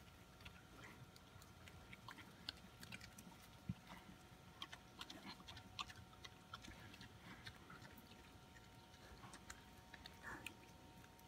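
Pigs eating food off the ground: faint, irregular crunching and smacking of chewing.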